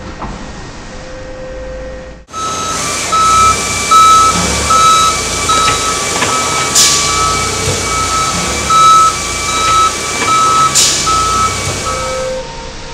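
Forklift warning beeper sounding in a steady pulse, about two and a half beeps a second, over the forklift running. It starts suddenly about two seconds in and stops near the end. Two sharp knocks stand out, at roughly 7 and 11 seconds.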